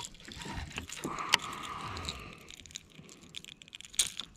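Baitcasting reel cranked fast, a steady whir from about a second in until past the two-second mark, followed by light clicks and jingling as the hard-bodied lure and its hooks are handled.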